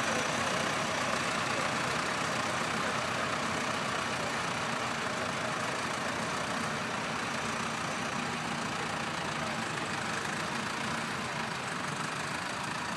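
Farm tractor's engine running steadily as the tractor drives away, slowly fading.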